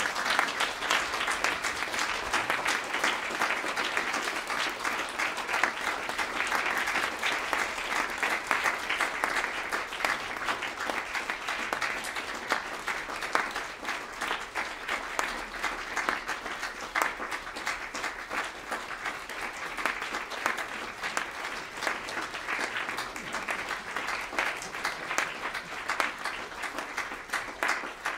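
Audience applauding steadily with dense, even clapping.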